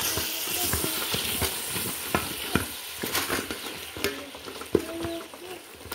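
Beef and vegetables sizzling in an aluminium pot while a wooden spoon stirs them. The spoon scrapes and knocks against the pot in quick irregular clicks over a steady hiss of frying.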